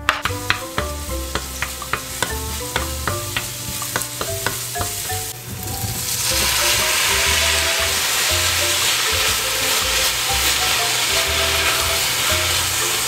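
Minced garlic and green onion sizzling in oil in a stainless steel frying pan as they are stirred. About six seconds in, the sizzle jumps to a loud, steady hiss as sausage slices and broccoli florets are stir-fried in the pan.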